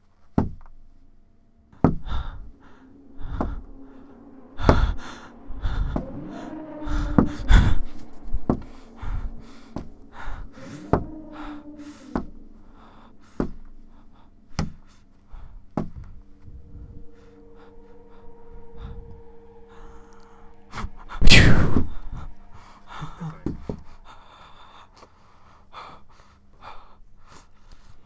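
Homemade sound effects dubbed over a film scene: a long string of sharp knocks and thuds mixed with breathy gasps and short voiced noises, a held hum, and one very loud falling whoosh about 21 seconds in.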